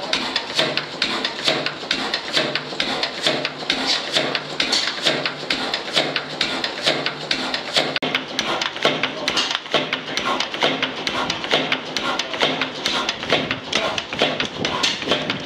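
Blackstone 32 hp spring-injection oil engine plodding along, its valve gear and injection linkage clicking and tapping in a quick, even rhythm over the low beat of the engine.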